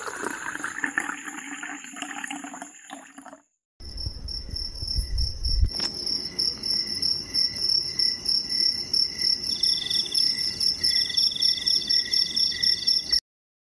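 Crickets chirping in a steady, rapidly pulsing chorus. It starts about four seconds in, after a softer, hissy stretch, and stops abruptly near the end.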